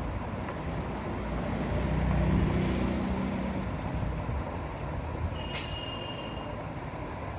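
Steady rumble of road traffic in the background, swelling about two seconds in as a vehicle passes. About five and a half seconds in there is a click and then a short, high beep.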